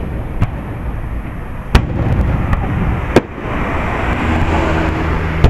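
Aerial firework shells bursting overhead: four sharp bangs over a steady low rumble, with a denser hiss in the second half.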